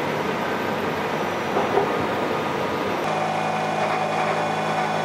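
Steady running noise of heavy machine-shop machinery. About three seconds in it changes abruptly to a steady low machine hum.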